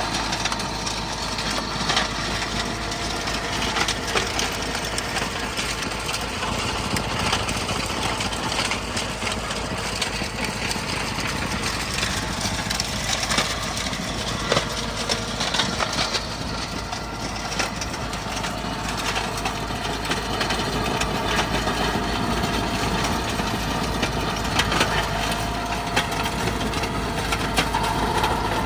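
Tractor engine running steadily under load while driving a stone crusher, with a constant irregular crackle and knocking of stones being smashed in the crusher.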